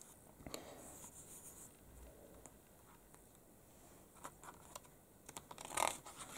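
Faint rustling and scratching of fingers on a book's paper pages, with a few light clicks, and a page being turned near the end.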